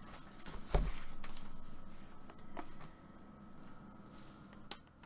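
Handling noise as a folded book is moved about on a table. A dull thump comes under a second in, followed by a couple of seconds of rustling and sliding, then a few light taps.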